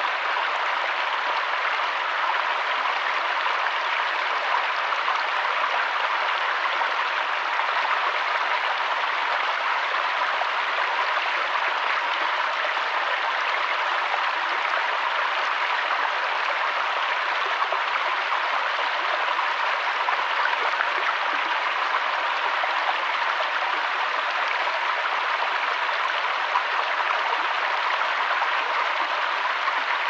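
Small rocky forest stream running over stones and low cascades: a steady rush of splashing water.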